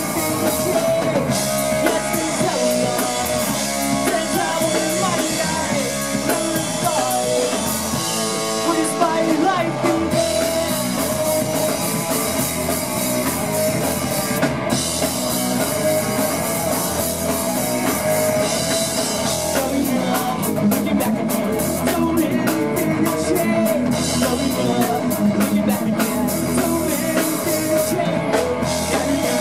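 Punk rock band playing live: distorted electric guitar, electric bass and a drum kit at a fast steady beat, with singing.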